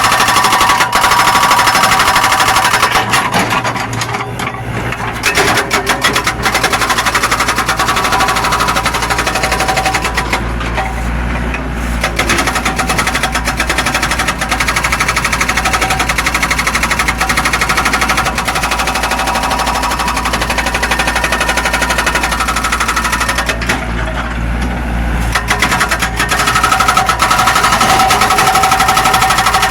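Zoomlion excavator's diesel engine running hard while digging, with a fast, continuous rattling clatter. Three times the higher clatter drops away briefly as the engine note deepens.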